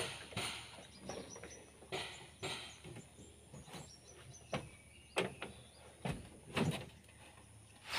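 Hino truck cab door opened and a person climbing up into the cab: a string of light clunks and knocks of the door, steps and handholds, with faint bird chirps.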